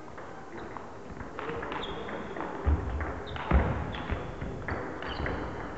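Table tennis ball clicking off bats and table in a short series of sharp hits, with two heavy thuds of footwork on the wooden sports-hall floor a little before the middle, echoing in the large hall.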